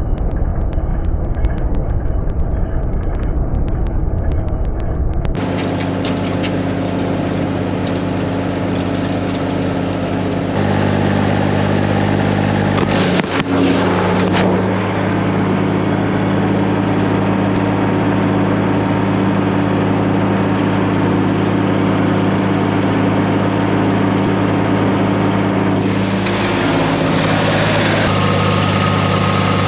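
A loud low rumble with fast, even ticking for the first few seconds. Then a farm tractor's diesel engine runs at a steady speed, its pitch stepping to new levels a few times where the footage changes.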